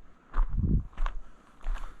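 Footsteps walking outdoors, several separate steps roughly every half second, with a dull low thump a little before the middle.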